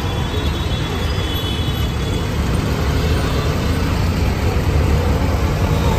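An auto-rickshaw's small engine running, with steady street traffic noise around it.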